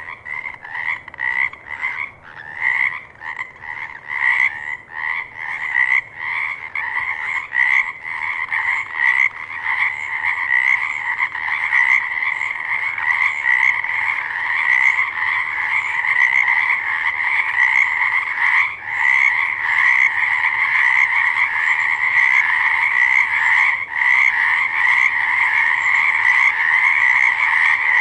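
Frogs croaking in a chorus: separate short calls at first, building within about ten seconds into a dense, continuous din of overlapping calls.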